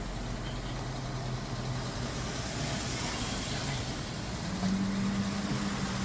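Car engine running at low speed, heard from inside the cabin as a steady low hum; about two-thirds of the way through, a second, higher steady tone joins it.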